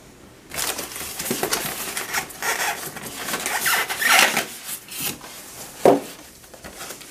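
Cardboard box being opened by hand: a run of scraping and rustling of cardboard flaps and packing rubbing together, then one dull thump just before the end.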